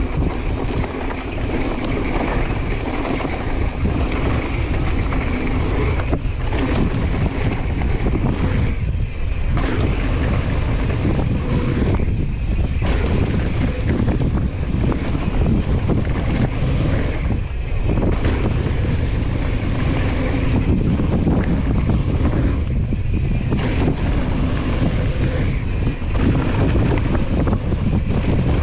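Heavy wind rushing over the microphone on a fast mountain-bike descent, mixed with knobby tyres rolling over a loose dirt trail. The rush is steady, easing briefly a few times.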